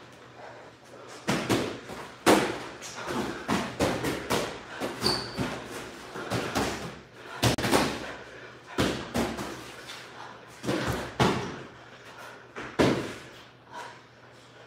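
Boxing gloves landing punches during sparring: a run of irregular sharp thuds and slaps, the hardest just after two seconds in and again around seven and a half and thirteen seconds.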